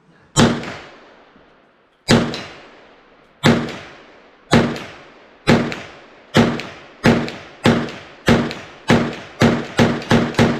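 Kel-Tec PMR-30 pistol firing .22 Magnum rounds: about thirteen sharp shots, each trailing off in a short echo. The first shots come well spaced and the rest grow quicker toward the end.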